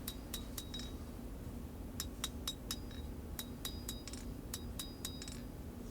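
Blacksmith's hammer striking hot knife steel on an anvil while forging the handle of a full-tang Bowie: quick ringing blows, about four a second, in short runs with a brief pause about a second in. A steady low hum runs underneath.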